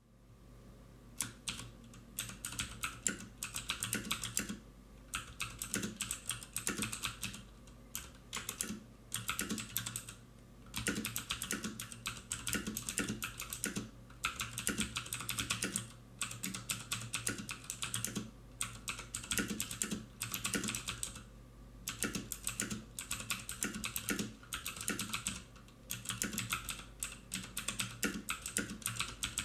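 Typing on a HyperX Alloy FPS mechanical keyboard with Cherry MX Red linear switches: rapid runs of key clacks in bursts of a few seconds, broken by short pauses.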